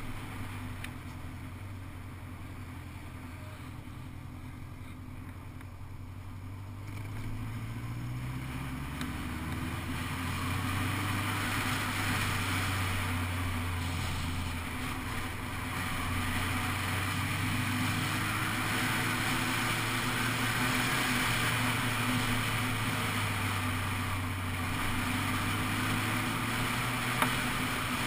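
Honda CBF 600 SA motorcycle's inline-four engine running on the move, rising in pitch a few times as it accelerates. Wind rushing over the microphone grows louder as speed builds, about a third of the way in.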